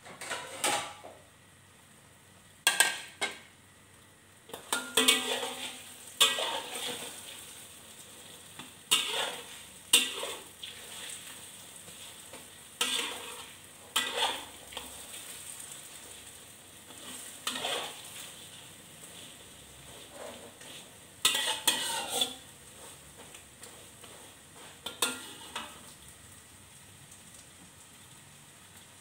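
Metal spatula scraping and knocking against a metal wok in about a dozen irregular strokes, over a low steady sizzle of egg frying in oil.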